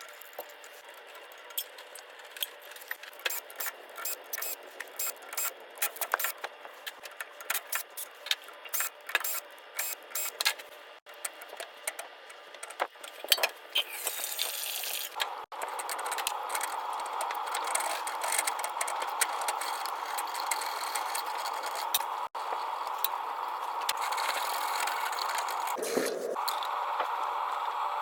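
Quick irregular metallic clicks and rattles of parts being handled during work on a boiler's low-water cutoff. About fifteen seconds in they give way to a steady rushing noise.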